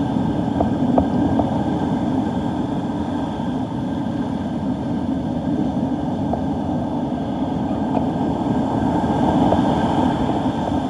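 Storm wind blowing across the microphone in a steady low rumble.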